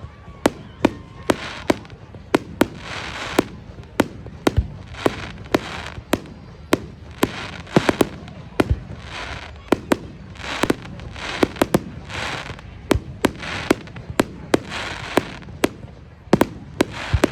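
Fireworks display: a rapid, continuous barrage of sharp bangs from bursting shells, about two or three a second, over a steady noisy wash.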